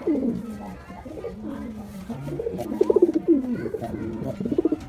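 Domestic pigeons cooing: several courtship coos, each a short pulsing call that falls in pitch, typical of a male pigeon calling to a female.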